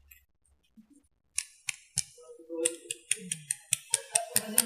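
Close-miked sharp clicks and taps, typical of ASMR handling of makeup items. They start after about a second and a half of near silence and come quicker and louder toward the end.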